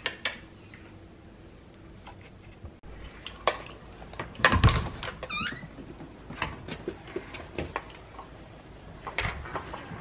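Front storm door unlatched and pushed open, with a clunk of the handle and latch about halfway through, followed by a short squeak of a few quick falling chirps. Scattered light clicks and taps around it.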